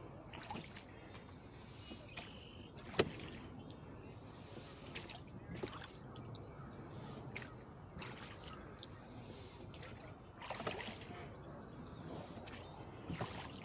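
Oars of a small wooden rowboat pulling through the water, with a splash and slosh at each stroke every couple of seconds. A sharp knock about three seconds in is the loudest sound.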